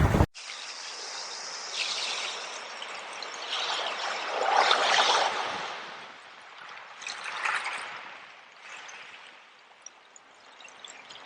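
A small stream trickling and gurgling, its flow swelling and easing several times. Just after the start, a louder recording of wind and waves cuts off abruptly.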